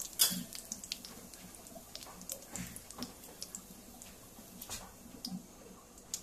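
Hot mustard oil in a kadai sizzling faintly, with scattered small pops and crackles as cumin seeds, curry leaves and turmeric fry in it.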